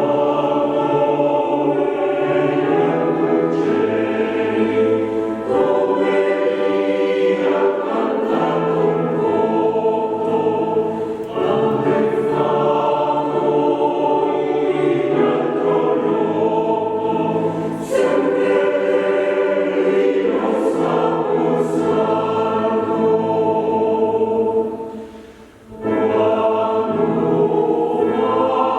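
Choir singing, with a short break about 25 seconds in before the voices come back in.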